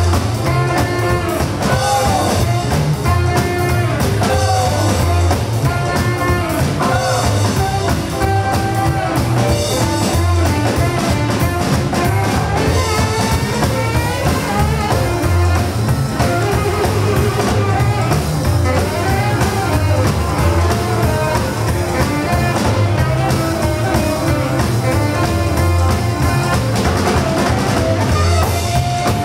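Live rock and roll band playing an instrumental section, with a saxophone lead over piano, electric guitar, upright bass and drums keeping a steady beat.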